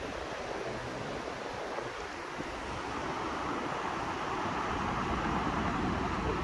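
Wind buffeting the microphone over the steady wash of sea surf, growing somewhat louder about three seconds in.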